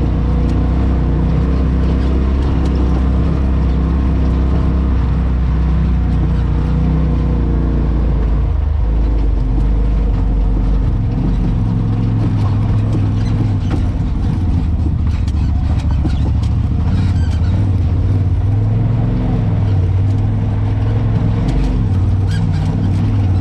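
Polaris RZR side-by-side engine running under way on a rough trail, heard from inside the enclosed cab, its note changing about eight seconds in.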